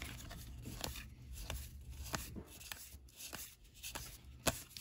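Cardboard trading cards being flipped through by hand, one card sliding over the next: soft rustles and light ticks, with a sharper click near the end.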